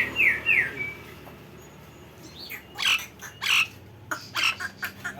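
Nias hill myna calling: a quick run of short slurred kingfisher-style notes, then loud harsh squawks, twice, in the second half.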